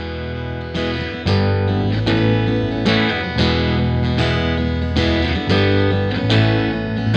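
Background music led by guitar, with notes struck on a steady beat about twice a second.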